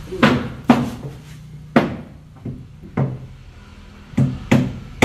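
A hammer striking wood: six sharp knocks at uneven intervals, each ringing briefly.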